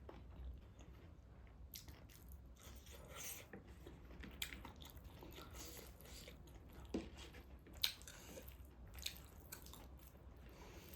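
Close-miked mouth sounds of a person eating: soft chewing with wet smacks and scattered sharper clicks. The sharpest click comes about two-thirds of the way through.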